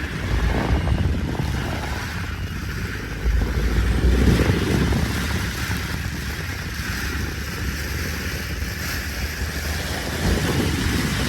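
A vehicle travelling through heavy rain on a waterlogged road: a steady rushing of water and wind over a low engine rumble, swelling louder about three to four seconds in.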